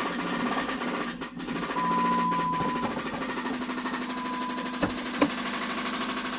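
Jeep engine running with a rapid, even knocking: connecting-rod knock from a worn rod bearing, which the owner thinks comes from cylinder number one. A high steady beep sounds twice, each about a second long.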